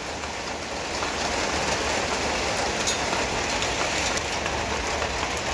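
Heavy rain falling in a steady hiss, with a few faint taps of single drops close by.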